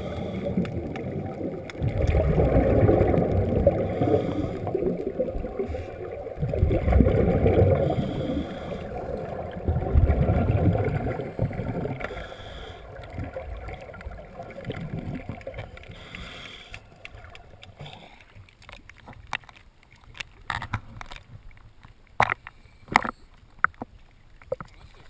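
Underwater rush of scuba regulator exhaust bubbles, surging about every three to four seconds as a diver breathes. In the last third, sharp splashes and knocks of water against the camera at the surface.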